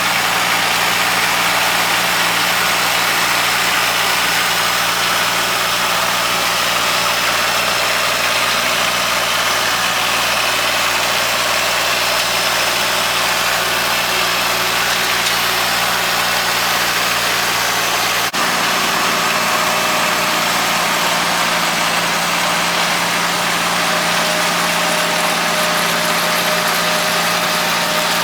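Kubota L3200 tractor's three-cylinder diesel engine running at a steady speed, driving a mini round baler while baling hay.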